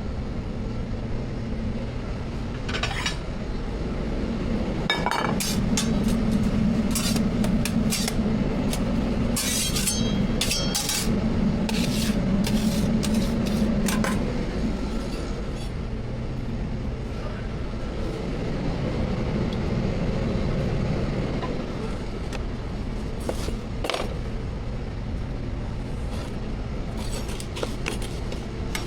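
Metal utensils clinking against pans and dishes during street-food cooking: many sharp clinks, thickest in the middle stretch, over a steady low rumble that swells and fades.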